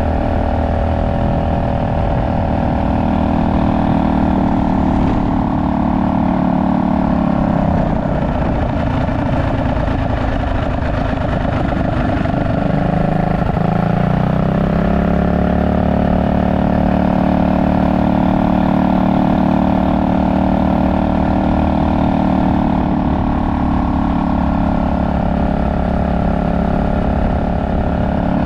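Tillotson 225 cc single-cylinder four-stroke engine on a Trailmaster MB200X minibike running at steady cruising revs. The revs drop about halfway through, then climb back up as it accelerates again.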